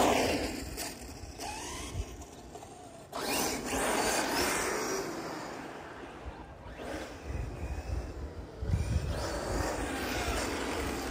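Electric 1/8-scale Hot Bodies RC car running on asphalt, its motor whining up and down in pitch with the throttle along with tyre noise. It is loudest as it passes close at the very start, then fades and swells again as it drives away and comes back.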